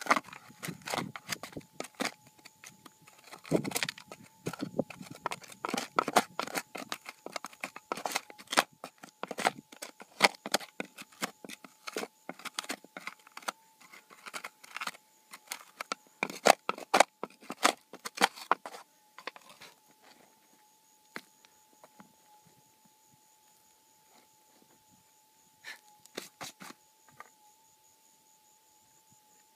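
Stones and gravel clattering and scraping as a hole under a rock is dug out by hand, a rapid run of knocks for about eighteen seconds, then only a few more near the end. Under it, a metal detector's steady threshold tone hums throughout.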